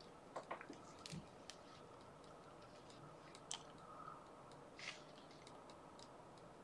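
Near silence, broken by a few faint, scattered computer mouse clicks.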